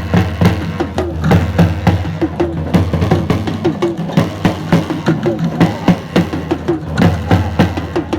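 Music with percussion, a steady beat of sharp knocks over pitched tones.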